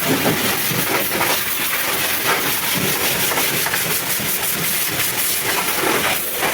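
High-pressure washer jet spraying water onto a truck, a loud steady hiss with spattering that rises and falls as the spray moves.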